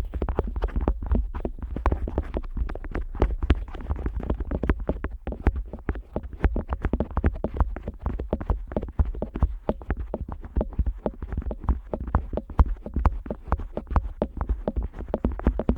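An otoscope rubbing and pressing against the silicone ear flap of a KU100 dummy-head microphone, heard up close in binaural. It makes a rapid, uneven stream of crackling clicks over a steady low rumble.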